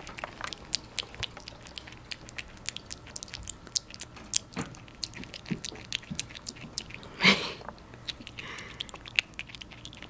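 Baby ring-tailed lemur chewing banana: rapid small clicks of its mouth and teeth. One louder short noise comes about seven seconds in.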